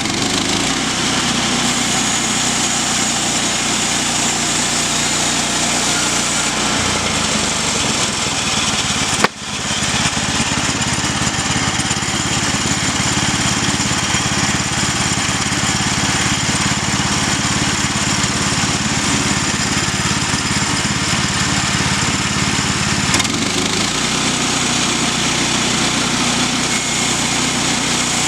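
Small gasoline engine running steadily under load, powering a sawmill cutting planks from a log, with one brief sharp break about nine seconds in.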